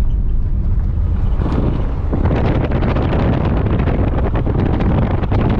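A car driving on an unsealed gravel track, heard from inside the cabin as a steady low rumble. From about a second and a half in, tyre noise and a dense crackle of gravel and stones are added.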